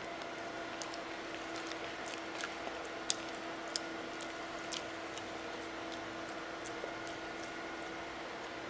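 A puppy gnawing on a chew stick: scattered small clicks and crunches at irregular intervals, the sharpest about three seconds in, over a steady background hum.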